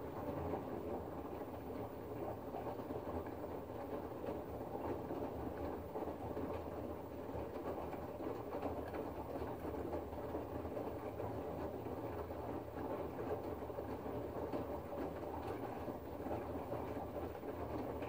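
LG front-loading washing machine drum tumbling wet laundry in water: a steady motor hum with the churning and sloshing of the load. It starts at the beginning and stops at the end, one tumbling stroke of the prewash in a 60°C stain-care cycle.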